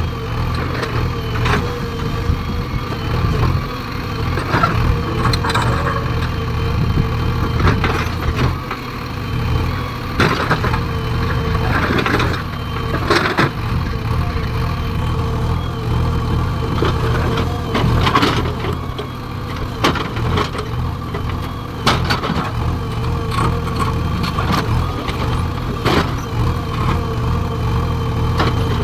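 Heavy diesel engine running steadily, with sharp metallic clanks and knocks at irregular intervals, such as stone hitting a bucket or trolley during loading.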